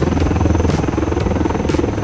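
Helicopter flying close by, its rotor blades giving a loud, rapid steady chop.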